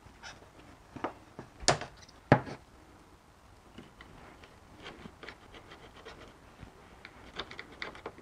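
Hand tools and a metal shift arm being handled on a workbench: a few sharp knocks in the first few seconds, the third the loudest, then light clicking and scraping near the end.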